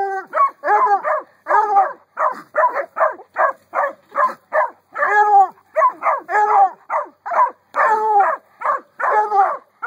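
Walker hound pup barking fast and steadily, about two to three sharp barks a second without a break, at an animal caught in a wire cage trap.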